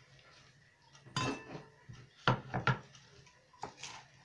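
Kitchen knife chopping sorrel leaves on a wooden cutting board: irregular sharp knocks of the blade on the board. There is one knock about a second in, a quick run of three a little past two seconds, and two softer ones near the end.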